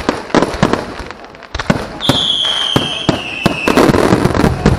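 Aerial fireworks bursting in quick succession, a string of sharp bangs. About two seconds in, a high whistle slides slightly down in pitch for a second and a half, and the bursts thicken into a dense crackle near the end.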